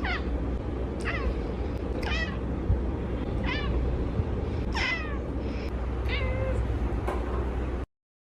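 A cat meowing again and again, about six short meows that each fall in pitch, over a steady background hiss. It cuts off suddenly near the end.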